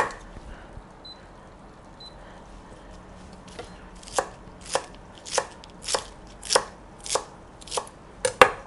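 Chef's knife chopping spring onions and celery leaves on a wooden cutting board: one knock at the very start, then from about four seconds in a steady run of about ten even strokes, a little under two a second.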